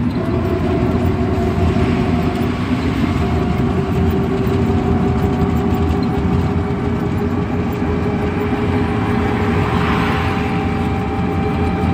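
Steady road and engine noise inside a moving car, with a faint steady whine over the rumble.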